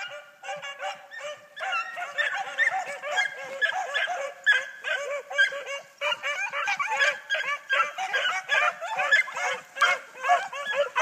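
A pack of beagles baying together while running a rabbit's trail. Many voices overlap in quick, repeated cries, and more hounds join in about a second and a half in.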